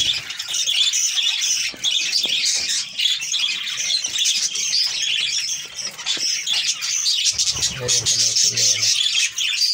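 Many budgerigars chattering continuously, a dense mix of high chirps and warbles from the colony.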